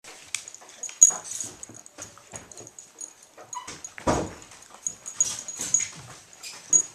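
Boston terrier twisting and scratching itself on a wood floor: its collar tag jingles in quick, irregular clicks and its paws and body scuff the floor, with one louder burst of noise about four seconds in.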